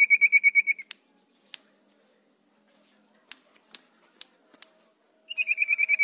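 Caged sirtu songbird singing a rapid, even trill of one repeated high whistled note, which breaks off about a second in. A few faint sharp clicks follow, and the trill starts up again near the end.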